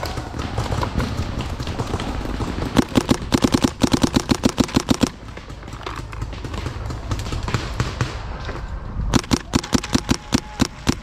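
Paintball markers firing rapid strings of shots, about eight to ten pops a second: one string lasting a couple of seconds, a pause, then another near the end.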